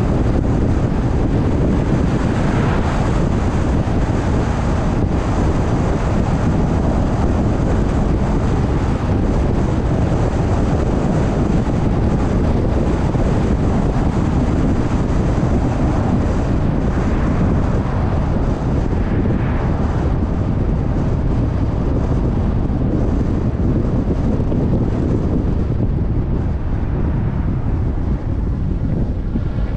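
Steady rush of wind and road noise from a car driving along at speed, with no breaks or distinct events.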